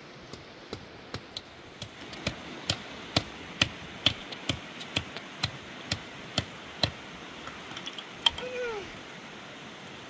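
Steady hammering: sharp blows, about two a second, which stop about seven seconds in. A few lighter taps and a short falling vocal sound follow.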